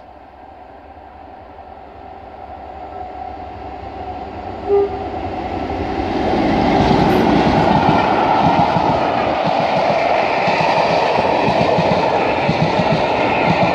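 Class 47 diesel-electric locomotive with its Sulzer twelve-cylinder engine, growing steadily louder as it approaches and then passing close by. It gives one short horn toot about five seconds in. From about seven seconds its engine is followed by the steady rumble and rattle of the coaches running over the rails.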